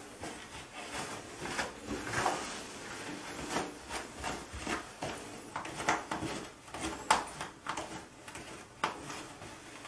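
Cat lapping water from a plastic pet drinking fountain: irregular clicks of the tongue at the water over the fountain's steady trickle.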